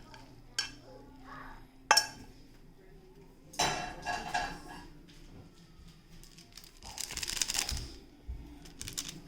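Kitchenware clattering: dishes and utensils knocked and clinked together. Several sharp knocks, with two longer spells of noisy scraping and rattling, one in the middle and one near the end.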